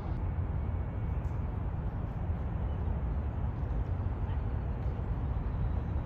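Wind buffeting the microphone: a steady, unsteadily rumbling low noise with no distinct events.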